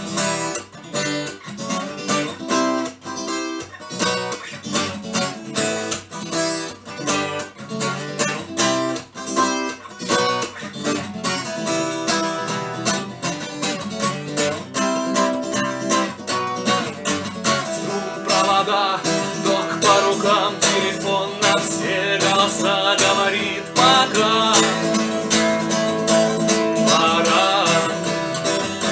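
Acoustic guitar playing an instrumental introduction, steady and rhythmic. About two-thirds of the way in, a higher wavering melody joins over the guitar.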